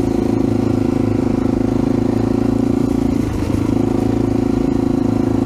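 AJP PR7's single-cylinder four-stroke engine running at a steady cruise on a dirt track, with a brief dip in the note about three seconds in before it settles back to the same pitch.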